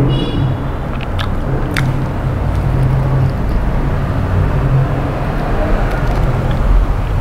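Steady low rumbling background noise, with a few faint clicks as a person chews a burger.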